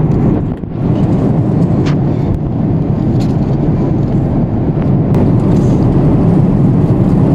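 Steady jet-airliner cabin noise in flight: the even rush of engines and air through the cabin, with a few faint clicks and rustles of paper food packaging being handled.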